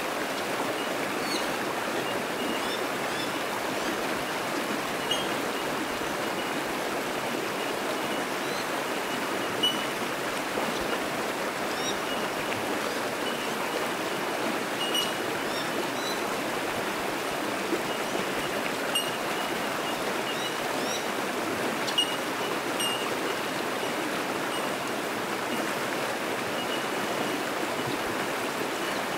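Fast-flowing creek running over rocks as a steady rush of water, with bell miners (bellbirds) giving short, high pinging calls scattered through it.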